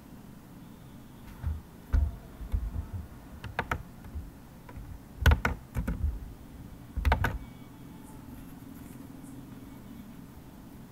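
Computer keyboard typing and mouse clicks in short flurries of sharp clicks with low thuds, over a steady low background hum.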